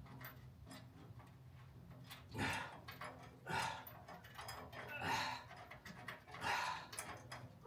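A man breathing hard with effort, four heavy breaths about a second and a half apart, while straining to hold a car door up and fit a hinge bolt.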